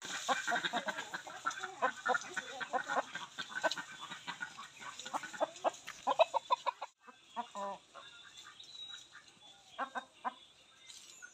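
Chickens clucking, many short calls in quick succession. After a brief break about seven seconds in, the calls are sparser.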